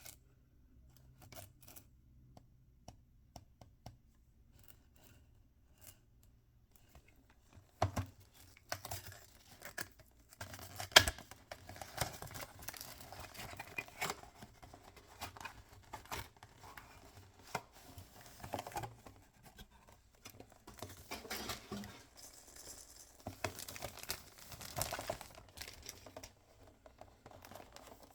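Toy packaging being torn open and crinkled by hand, with small handling clicks. Only light ticks for the first quarter or so, then steady tearing and crinkling with one sharp snap a few seconds later.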